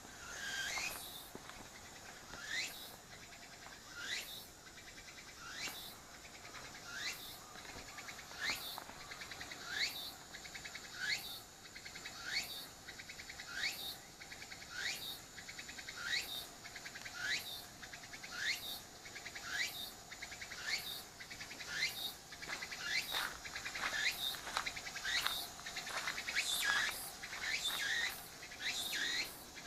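Cicada calling: a high note that sweeps downward, repeated about every second and a half, the calls coming faster and closer together near the end.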